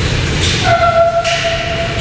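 London Underground train rumbling through a nearby tunnel, with a steady whine starting a little under a second in.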